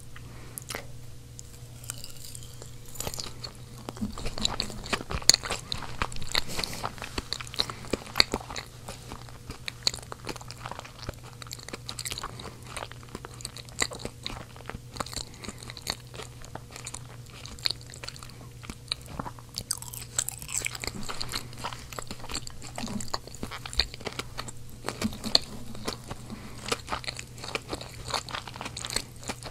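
Close-miked chewing of seasoned potatoes: biting and crunching with many quick, irregular mouth clicks, over a steady low hum.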